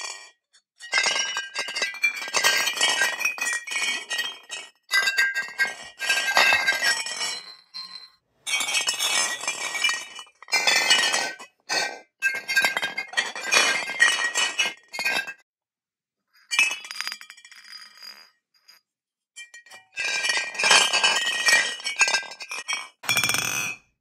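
Empty glass wine bottles knocking and clinking against one another in bursts of a few seconds, separated by short pauses, each clink leaving a clear ringing tone.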